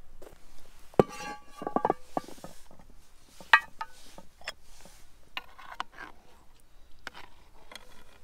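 Cast-iron Dutch oven lid clanking and ringing as it is lifted off with a metal hook, with a quick run of clinks after the first loud clank and another sharp clink a couple of seconds later. Lighter clinks follow, as a metal ladle goes into the pot.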